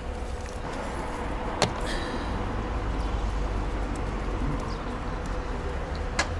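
Outdoor car-park background: a steady low rumble of wind and distant traffic with a faint steady hum. A sharp click comes about one and a half seconds in and another near the end as the coaxial cable and its fittings are handled.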